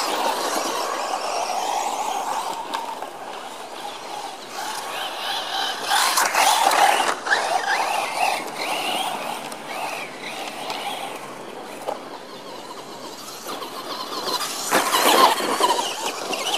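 Radio-controlled off-road buggies driving on a dirt track: their electric motors whine, rising and falling in pitch with the throttle. The whine is loudest about six seconds in and again near the end, mixed with the gritty noise of tyres on loose dirt.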